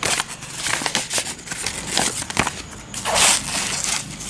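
Rustling, crackling and small clicks from nylon Combat Application Tourniquets being handled, with a longer scraping rustle a little after three seconds in.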